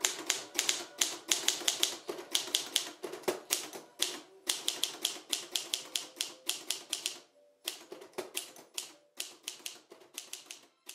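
Rapid, irregular mechanical clicking, about five clicks a second, with short pauses about four seconds in and about seven and a half seconds in.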